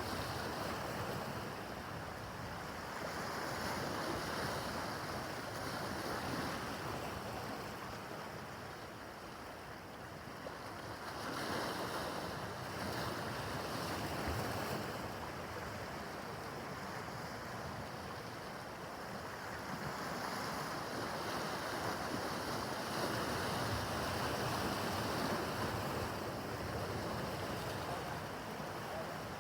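Rough harbor water, with waves washing and splashing and wind buffeting the microphone. The level swells and eases every few seconds, dipping briefly about a third of the way in.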